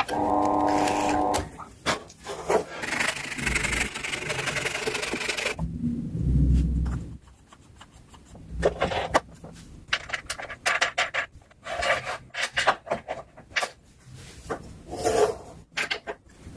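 Wood being worked by hand: rasping and rubbing strokes on wood, short and irregular through the second half. A steady droning tone sounds briefly at the start.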